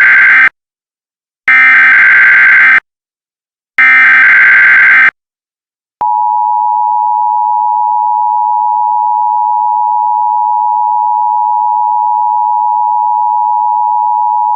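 Emergency Alert System SAME header: three bursts of shrill digital data tones, each about a second and a half long with a second's gap, the first already under way. About six seconds in, the steady two-tone EAS attention signal begins and holds.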